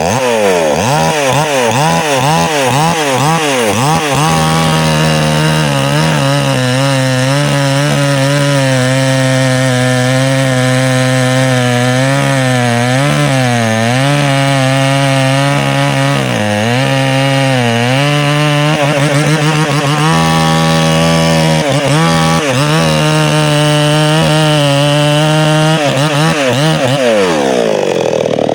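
Chainsaw cutting wood. It is revved up and down quickly for the first few seconds, then runs at a steady high pitch with a few brief dips, and is revved up and down again near the end.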